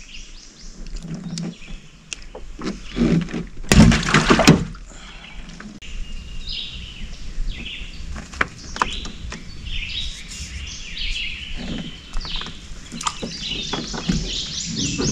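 Wild birds chirping and calling in the trees, with many short high chirps that grow busier in the second half. Scattered small knocks and clicks and one loud, brief rush of noise about four seconds in.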